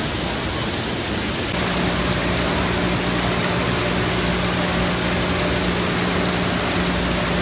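Citrus packing-line machinery running: a dense, even rattle of oranges rolling along roller conveyors. A steady low motor hum joins about a second and a half in.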